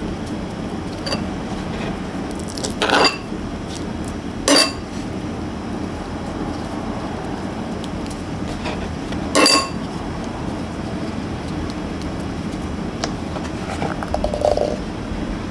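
Metal spatula clinking against a small ceramic bowl of dumpling filling: three sharp clinks with a short ring, about 3, 4.5 and 9.5 seconds in, over a steady background hum. A softer, duller knock comes near the end.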